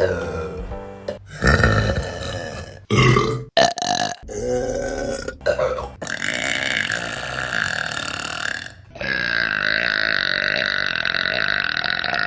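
A string of women's burps from different recordings, cut one after another: several short to medium belches, then one long, drawn-out burp beginning about three quarters of the way through.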